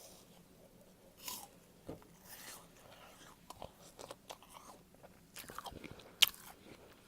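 Golden Delicious apple being bitten into and chewed: irregular crisp crunches, with the sharpest crunch about six seconds in.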